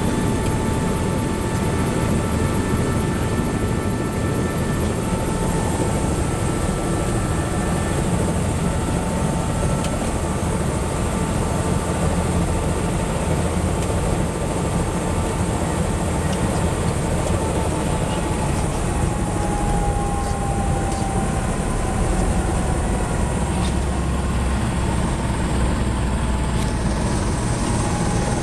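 Tour helicopter's turbine engine and rotor running on the ground, a steady loud noise with a high turbine whine. The whine sinks slightly in pitch in the second half.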